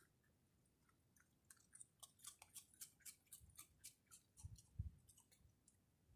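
A raccoon chewing popcorn: a faint run of quick, crisp crunching clicks, with two soft low thumps a little after the middle.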